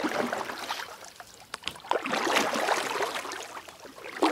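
Water splashing and rushing in swells that rise and fade about every two seconds.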